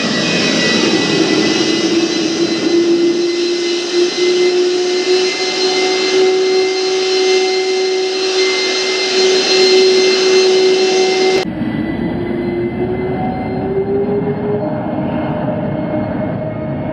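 General Electric J79-11B turbojet running at partial power, a strong steady howl riding over the jet roar. This howl is typical of the engine's original standard combustor liners and fuel nozzles and its early short-petal exhaust nozzle. About two-thirds through the sound turns suddenly more distant and duller, and the howl's pitch then rises a little.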